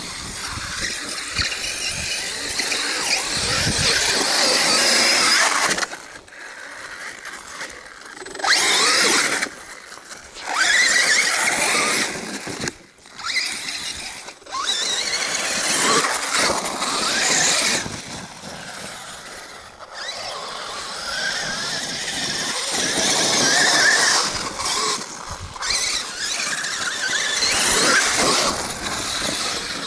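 Traxxas Summit RC truck's 2700KV brushless motor and drivetrain whining in bursts as the throttle is punched and released, the pitch rising and falling with the revs, with short pauses between runs.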